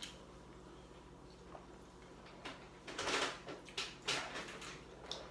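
A few short, breathy puffs of air from a person blowing out hard through an open mouth, starting about halfway in, as if to ease the burn of extremely spicy noodles.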